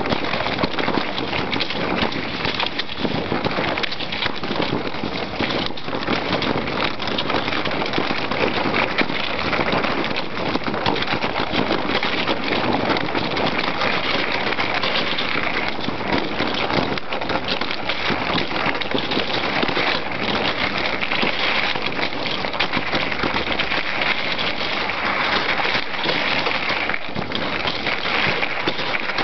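A dog-pulled sled travelling over snow-covered river ice: a steady, grainy hiss of scraping and crunching under the runners and paws.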